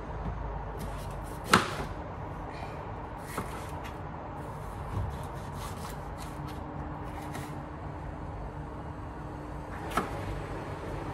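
Knife slicing a raw, crunchy bell pepper: a run of short crisp cutting strokes, with a sharp knock about a second and a half in and another near the end as the knife comes down.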